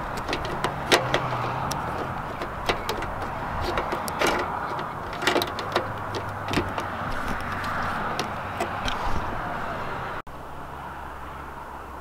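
Irregular sharp plastic clicks and taps as a clear LED side marker light is pushed and worked into its fender socket by hand, over a steady hiss. The clicking stops about ten seconds in, leaving a quieter steady background.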